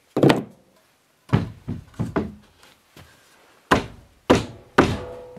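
Irregular wooden thunks and knocks, about eight, from work on a plywood door and floor. The first is the loudest, and after the last one, near the end, a faint hum rings on.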